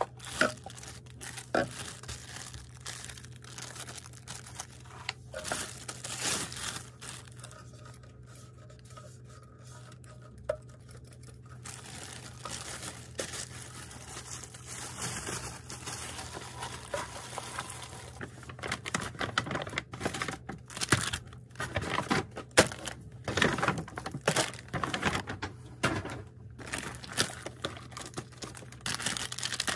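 Plastic packaging being unwrapped by hand: irregular crinkling and rustling of plastic wrap and sleeves, with small taps of plastic cases, busiest in the second half. A faint steady low hum runs underneath.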